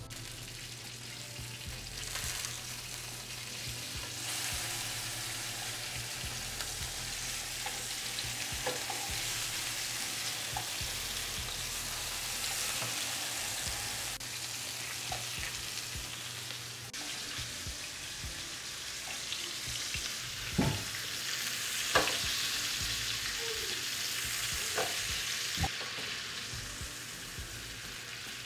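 Salmon fillets frying in oil in a nonstick pan, a steady sizzle. A few sharp knocks of metal tongs handling the fish come past the middle, the loudest about three-quarters of the way through.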